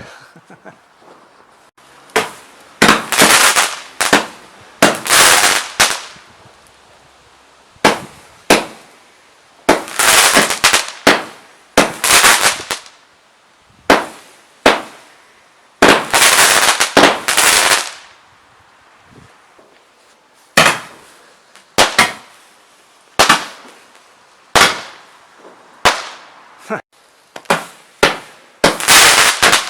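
Consumer firework firing a long string of shots, each a sharp launch bang trailing into a hiss that lasts up to about two seconds, roughly one shot every one to two seconds.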